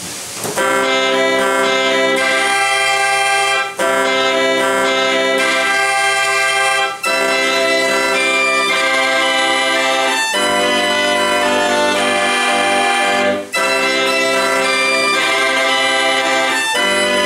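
Gebrüder Bruder fair organ playing an old paper music roll: full chords of organ pipes carrying a melody. The music comes in about half a second in, with short breaks between phrases and deeper bass notes joining partway through.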